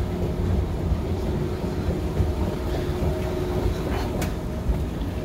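Thyssenkrupp inclined moving walkway running, a steady low rumble with a faint hum. A sharp click comes about four seconds in.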